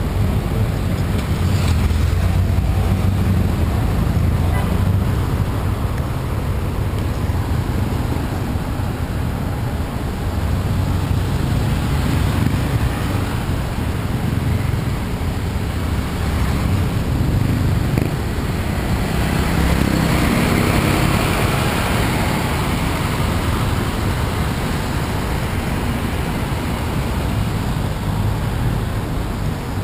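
Steady city street traffic, with cars and motorbikes driving through an intersection as a continuous rumble. One louder swell of passing vehicles comes about twenty seconds in.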